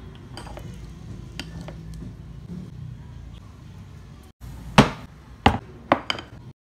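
A metal fork cutting through sticky rice cake, with a few faint taps on a ceramic plate over a low steady hum. After a short break about two-thirds through, four loud sharp clicks come close together.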